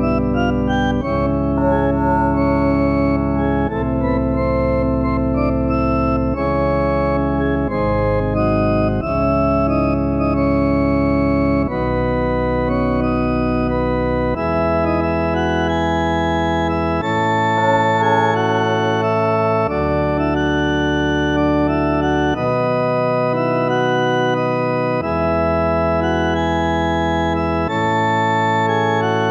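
Organ music playing sustained chords over a bass line, the chords changing every second or two.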